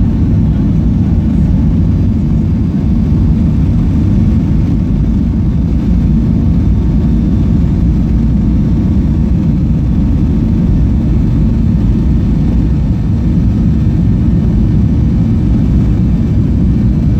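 Steady low rumble inside an airliner's cabin as the aircraft rolls along the ground, engine and wheel noise heard through the fuselage.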